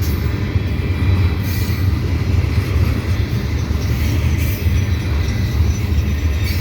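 CSX freight train rolling past at close range: a steady low rumble from the wheels and cars, with a few brief high-pitched wheel sounds.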